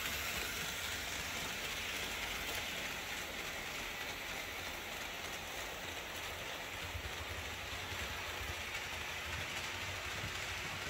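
Märklin 37379 HO-scale Class 101 model electric locomotive pulling coaches around the layout: a steady rolling hiss of wheels on the metal track with a low rumble underneath.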